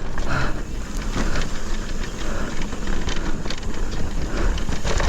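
Mountain e-bike descending a dirt trail at speed: a heavy rumble of wind on the microphone over tyre noise, with scattered rattles and knocks from the bike over the bumps.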